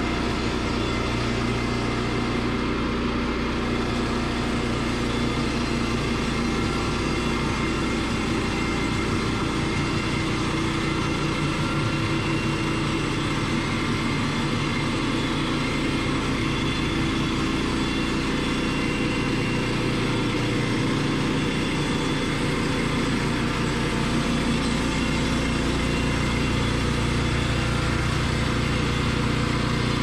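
Woodland Mills HM122 portable bandsaw mill running steadily, its gasoline engine driving the band blade through a stack of boards as it resaws them into stickers.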